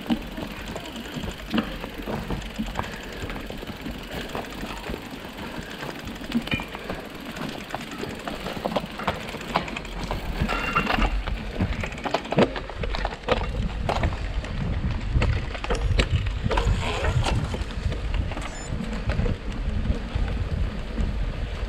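Mountain bike ridden fast over a rough, gravelly track, with rattling and knocking from the bike and tyre noise. A low rumble grows stronger about halfway through.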